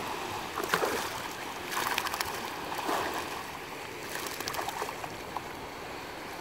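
Sea water sloshing and splashing around a swimming dog as it paddles, with a few brief sharper splashes in the first half.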